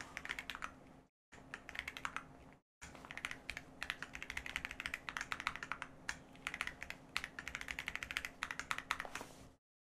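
Typing on a computer keyboard: quick runs of keystrokes with short pauses between fields, dropping to dead silence twice in the first three seconds and again just before the end.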